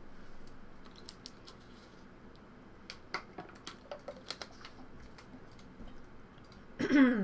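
Irregular light clicks of a computer keyboard and mouse, then a short voice sound falling in pitch near the end.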